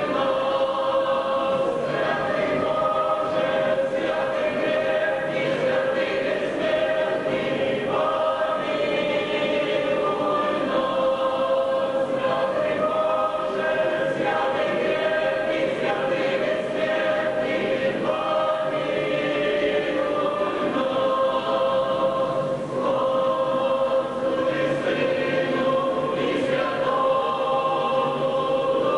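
Church choir singing a hymn in long, held notes.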